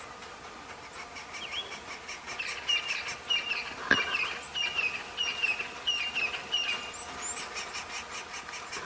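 A bird chirping in a rapid series of short calls, starting about a second and a half in, with one sharp click about four seconds in.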